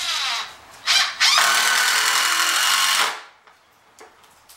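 Impact driver driving a screw into wood: a short burst, another brief burst about a second in, then a steady run of about two seconds that stops about three seconds in.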